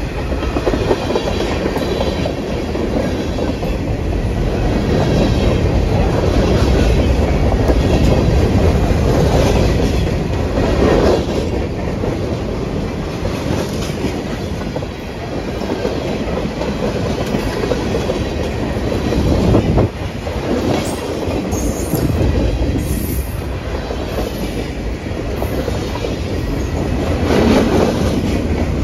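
Freight train's tank cars and covered hoppers rolling past close by: steel wheels clacking over the rail joints under a steady rumble, swelling now and then as a truck passes.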